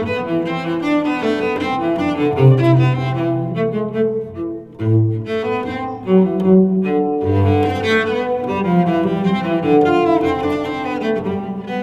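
LG G8/V50 smartphone alarm tone playing: a loud instrumental melody of pitched notes over low held bass notes, dipping briefly a little before halfway.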